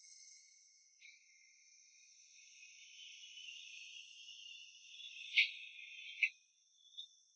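A steady, high-pitched insect chorus, like crickets, swelling a little in the middle, with two sharp clicks near the end.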